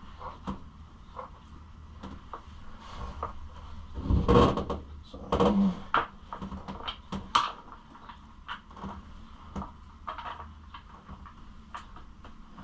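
Plastic dirt-bike fenders being handled and pushed into place on the frame for a test fit: scattered clicks and knocks of plastic on the bike, with the loudest thumps about four to six seconds in.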